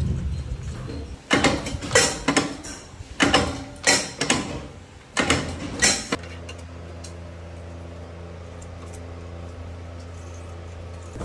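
Loud metal clanks and knocks from a press machine and its steel die plate, in quick clusters of two or three over about five seconds. After that comes a steady low hum.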